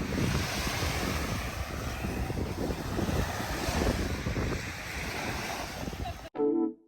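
Wind buffeting the microphone over the sound of sea waves. It cuts off suddenly a little over six seconds in, and piano-like music begins just after.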